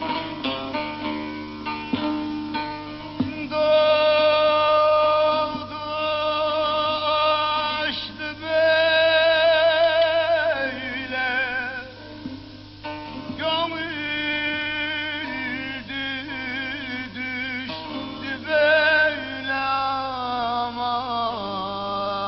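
Bağlama (long-necked Turkish saz) plucked rapidly, then a man's voice sings long held notes with a wavering vibrato over the bağlama's accompaniment, breaking briefly near the middle and sliding down near the end.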